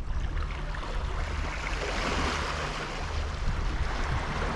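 Wind buffeting the microphone with a steady low rumble, over the hiss of sea waves washing on the rocks, which swells about two seconds in.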